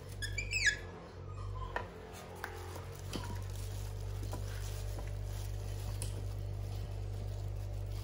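Baby monkey rummaging in a plastic bag of food: crinkling and light taps, with a quick run of high, falling squeaks about half a second in, all over a steady low hum.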